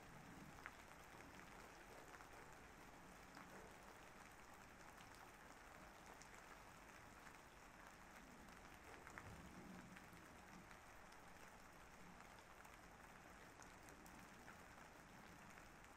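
Faint, steady rain, with scattered small drop ticks.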